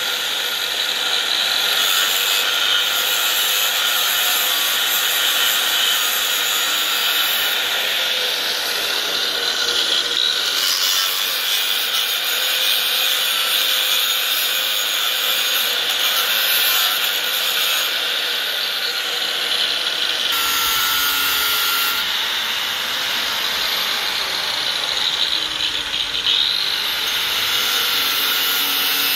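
Corded angle grinder running under load as it cuts, a steady grinding noise.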